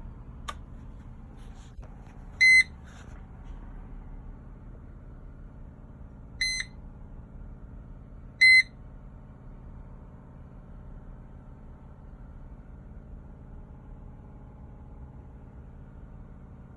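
Mercedes-Benz W210 E-Class instrument cluster's warning buzzer giving three short, high beeps a few seconds apart, over a steady low hum.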